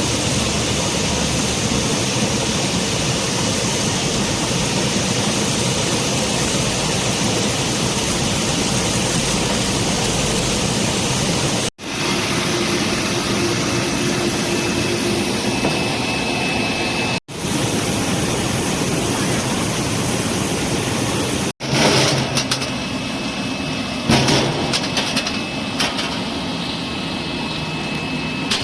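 Apple washing machine running: a steady rushing noise from its sprays and brushes, cut off abruptly three times and resuming each time. In the last several seconds, scattered sharp knocks sound over it.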